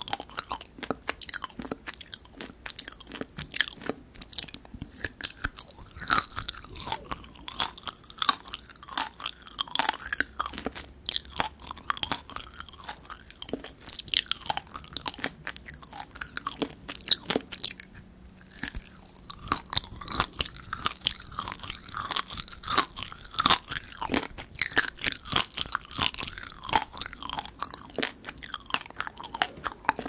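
Close-miked chewing of dried figs: sticky, chewy mouth sounds with many small crunches as the fig seeds break between the teeth. There is a short lull a little past halfway.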